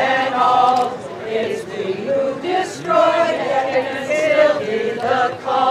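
A group of people singing together without accompaniment, several voices overlapping in a sing-along.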